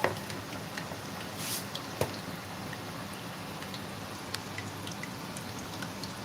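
Puff puff dough balls deep-frying in vegetable oil: a steady sizzle with scattered small pops and crackles, one sharper crack about two seconds in.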